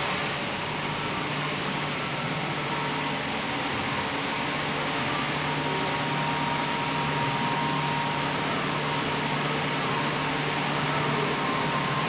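Steady hum and hiss of an aquarium hall's ventilation and pumping machinery, with a faint tone coming and going in the middle.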